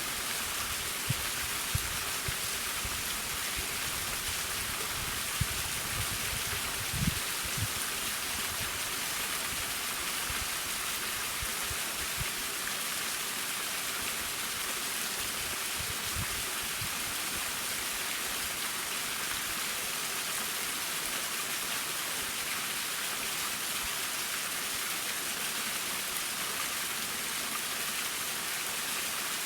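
Akataki waterfall on Mount Tsukuba: water falling and splashing in a steady hiss. A few brief low thumps come in the first half.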